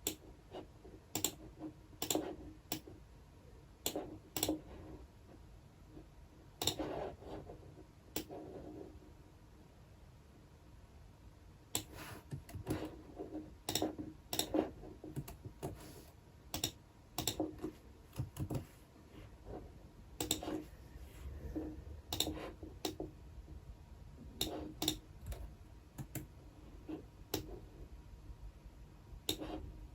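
Computer keyboard typed on in scattered, irregular keystrokes and clicks, some single and some in short runs, with a pause of a few seconds around ten seconds in.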